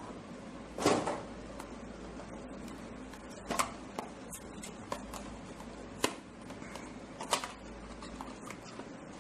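Small cardboard box being opened and handled: cardboard scraping and rustling with a series of sharp taps and knocks, the loudest with a brief scrape about a second in.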